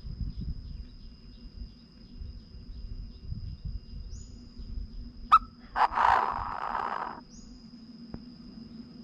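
Chinese francolin giving a single harsh, rasping call about six seconds in, just after a sharp click, over a steady high insect whine and low wind rumble.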